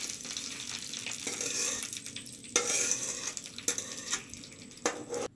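Hot oil tempering of mustard and cumin seeds, curry leaves and green chillies sizzling as it is scraped with a steel spoon out of a kadai onto curd, the spoon knocking against the pan a few times.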